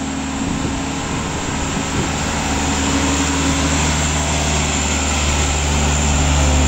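Dump truck's diesel engine pulling hard up a steep climb, a steady low drone that grows louder as the truck passes close by.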